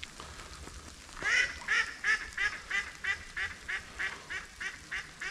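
Live decoy duck, a hen mallard, quacking in a long run of short, evenly spaced quacks about three a second, starting a little over a second in with the loudest first: a hen's calling series that draws drakes in.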